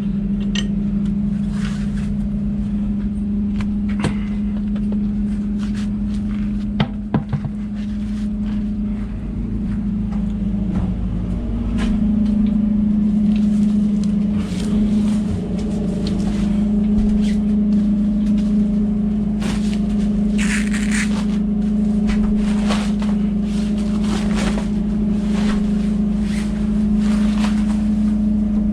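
A steady mechanical hum from an engine or motor, stepping up slightly in pitch about eleven seconds in, with scattered knocks, clanks and scrapes from tire and tool handling, busiest about twenty seconds in.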